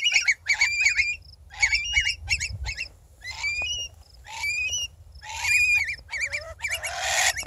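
Two long-billed curlews giving alarm calls as they dive-bomb an intruder near their nest: a rapid string of loud, harsh calls whose pitch wobbles up and down, with a harsher, noisier call near the end. A low rumble runs underneath.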